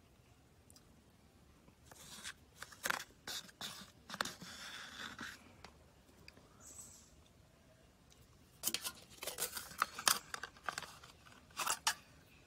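Plastic ice cream cup and its foil lid being handled: dry crinkling and sharp clicks in two spells a few seconds apart.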